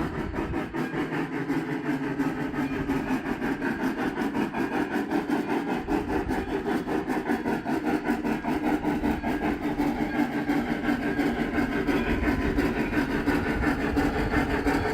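Lionel large-scale 4-4-2 Atlantic model steam locomotive running, its sound decoder playing a rapid, even steam chuff through the onboard speaker over motor and gear noise. It grows gradually louder.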